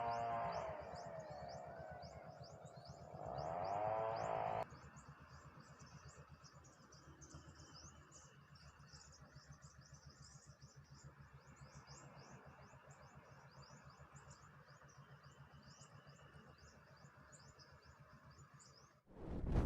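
A faint, steady run of rapid high-pitched chirps from small wildlife, about five a second. In the first four and a half seconds a louder motor hum rises and falls in pitch, twice, then cuts off suddenly.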